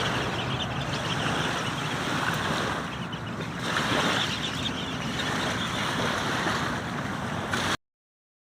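Wind buffeting the microphone outdoors: a steady rushing noise that swells in gusts, cutting off abruptly near the end.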